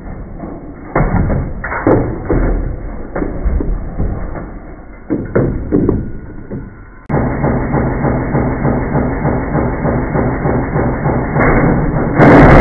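Slowed-down, muffled audio of a washing machine being smashed: several deep thuds and knocks over the first few seconds. About halfway through, a dense continuous rumbling clatter begins suddenly, and it turns into a louder, sharper burst near the end.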